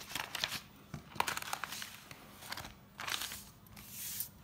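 Paper pages of a spiral-bound notebook being turned and pressed flat by hand: several soft rustling swishes with a few small clicks.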